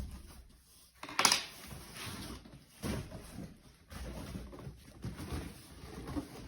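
Handling noises while unboxing a bass guitar: a sharp clack about a second in, then irregular knocks and scraping of packaging being moved.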